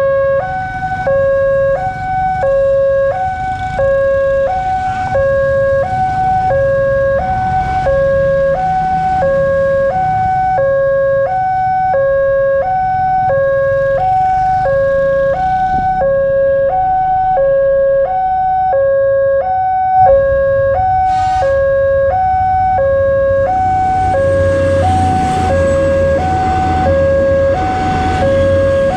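Railroad level-crossing warning alarm sounding a two-tone electronic chime, a low note and a higher note alternating about once a second. From about three-quarters of the way in, the low rumble of a passing train joins it.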